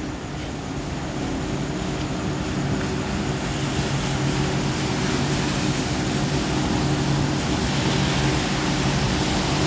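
Diesel locomotive with a Caterpillar engine drawing slowly into the station, its engine a steady low drone that grows gradually louder as it approaches.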